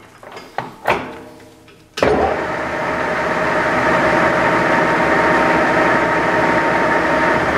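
A few light metallic clicks and a clunk, then about two seconds in a metal lathe switches on suddenly and its spindle and chuck run at steady speed, a constant mechanical hum with a couple of held tones.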